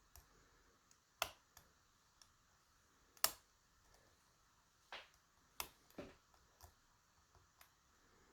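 Lock picking on a DOM RS Sigma pin-tumbler cylinder: a few scattered small metal clicks from the pick and tension tool working the pins, the loudest about three seconds in.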